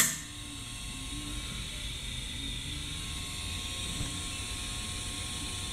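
A click as the vacuum chamber's air valve opens, then a steady hiss of air flowing back into the evacuated chamber, growing slightly louder.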